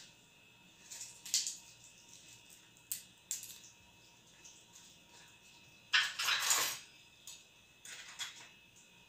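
Kitchen clatter from dishes and utensils being handled: scattered light clinks and knocks, with a longer, louder burst of noise about six seconds in.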